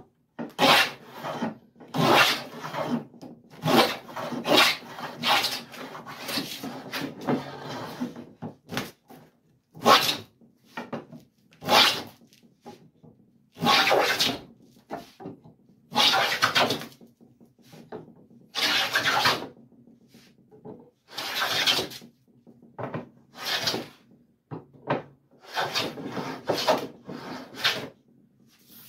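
A half-inch bead molding plane cutting a bead along the edge of a cherry board: a series of cutting strokes, each about a second long, with short pauses between as the plane is drawn back, one longer stroke a few seconds in.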